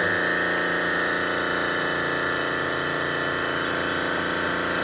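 Steady hum and whine of running refrigeration machinery, a constant mechanical drone with several steady tones.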